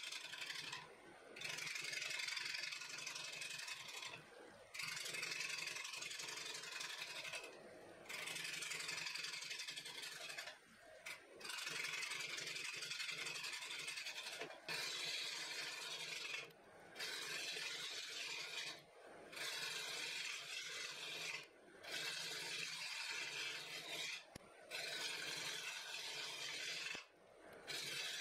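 Bowl gouge cutting the inside of a spinning wooden bowl on a lathe: a steady hissing, scraping cut that breaks off briefly every two to three seconds as the tool lifts between passes, over the steady hum of the lathe running.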